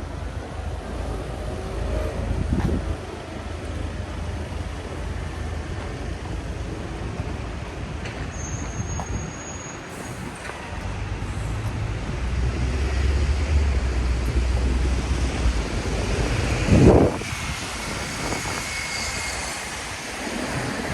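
Street traffic on a rain-wet city street: vehicles passing with a low engine rumble and the hiss of tyres, one passing close and loud about seventeen seconds in.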